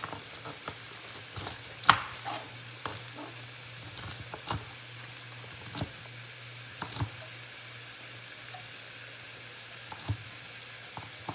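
Chicken sizzling in a frying pan with a steady hiss, while a kitchen knife chops baby asparagus on a cutting board in irregular sharp knocks, the loudest about two seconds in.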